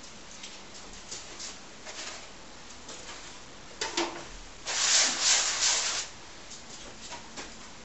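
Paintbrush scrubbing acrylic paint across canvas in one loud hissing burst of about a second, halfway through, after a few faint taps and scuffs and a sharper tap.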